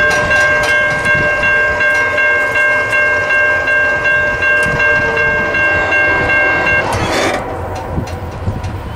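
Diesel locomotive air horn sounding one long steady blast, several chime notes together, cutting off about seven seconds in.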